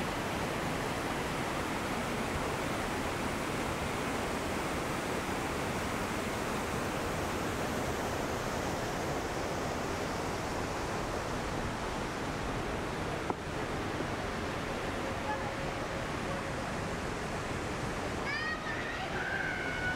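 Steady rush of falling water, the constant noise of a waterfall, with faint voices near the end.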